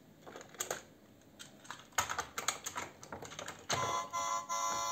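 Hard plastic toy parts of a VTech construction site playset clicking and rattling as the digger is handled. About three and a half seconds in, a steady electronic buzzing tone from the toy starts and holds for about a second and a half.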